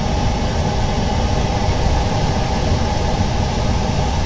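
Steady mechanical drone with a low rumble and hiss, unchanging throughout.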